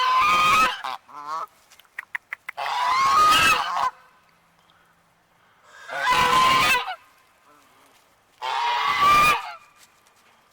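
Goose squawking: four loud, harsh honks of about a second each, a few seconds apart, with fainter calls between. The bird is agitated at a person close by.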